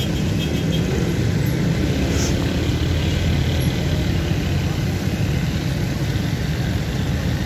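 Steady low rumble of outdoor background noise, like nearby road traffic, holding level without any clear separate event.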